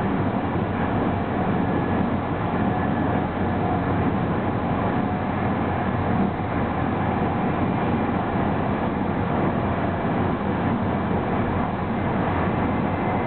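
Steady running noise heard from inside an ÖBB Eurocity train travelling at about 200 km/h: the rumble of wheels on rail mixed with the rush of air, with a faint steady whine on top.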